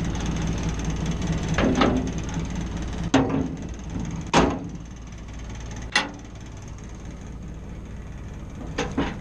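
Mazda T4000 truck's engine running steadily with the PTO engaged. Over it come six sharp metal clanks with a short ring, about one every second or so; the last two are close together near the end.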